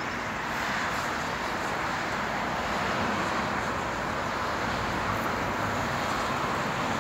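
Steady road traffic noise: an even rush of cars and tyres with no single vehicle standing out.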